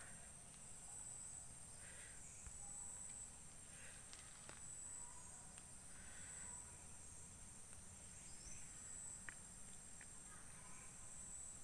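Faint outdoor ambience: a steady high-pitched insect drone, with a few soft chirps every couple of seconds.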